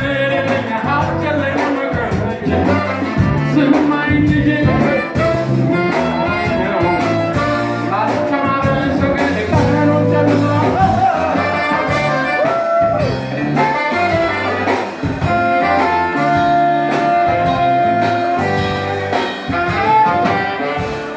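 Live band performance of an Ethiopian popular song: a male singer at the microphone over saxophones, electric guitar, keyboard and a steady repeating bass line.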